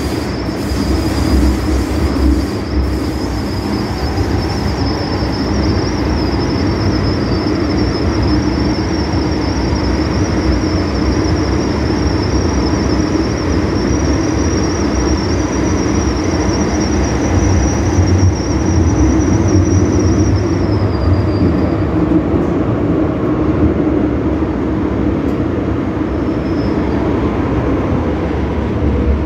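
MTR M-Train metro car running through a tunnel: steady rumble of wheels and running gear. A high thin whine runs over it, rises slightly, and fades out about three quarters of the way through.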